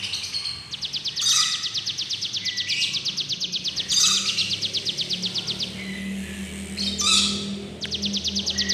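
Ciblek gunung, a mountain prinia, singing: long, very fast buzzy trills of repeated clicking notes, broken three times by short sharp chirps.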